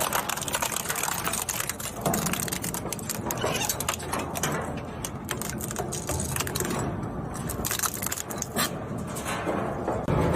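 Plastic shredder machine running and chopping plastic: a steady motor noise under a dense, continuous crackling clatter.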